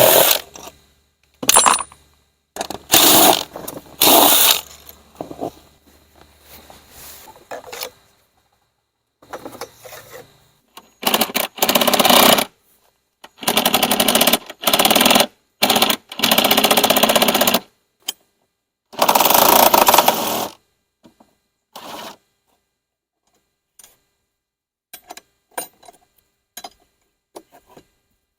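Cordless impact tool hammering in repeated short bursts of one to two seconds with pauses between, working at the bolts of the golf cart's rear seat.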